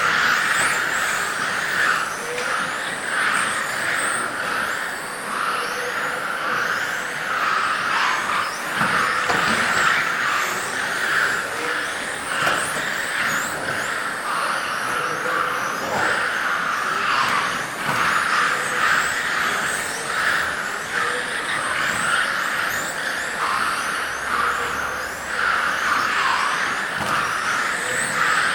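Several electric RC GT cars with 17.5-turn brushless motors racing: a steady hiss with high motor whines that rise and fall over and over as the cars speed up and slow down.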